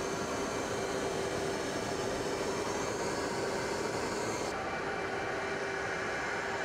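Steady in-flight aircraft engine drone, a constant noise with a steady hum through it, as heard from the camera aircraft. About four and a half seconds in the highest hiss cuts off suddenly, while the drone and hum carry on.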